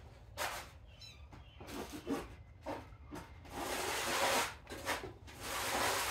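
Irregular rubbing and scratching noises, coming in short spells a second or two apart, like something being scraped or rubbed against wood.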